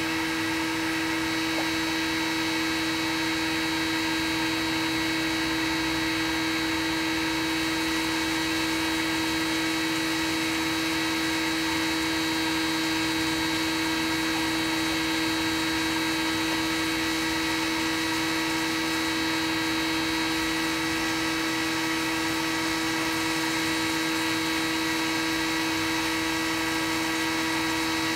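3D printer standing still with its cooling fans running: a steady hum with a high whine, unchanging throughout.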